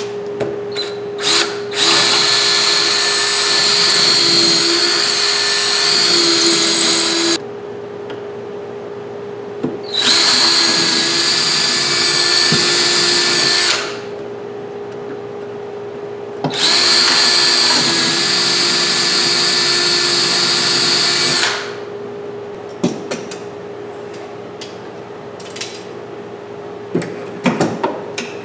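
Power drill running in three long bursts of several seconds each with short pauses between, boring mounting holes through a wooden clamp rack into the wall studs. Light clicks and knocks follow near the end.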